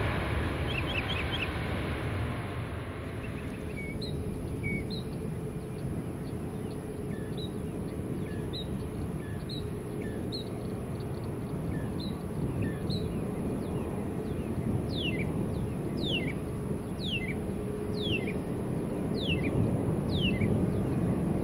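Bird calls: short chirps repeating every second or so, then near the end a series of about seven falling whistles, roughly one a second, over a steady low rumble.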